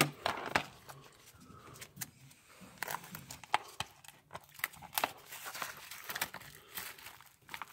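Cellophane shrink-wrap being torn and crinkled off a plastic DVD case: irregular crackles and small clicks throughout.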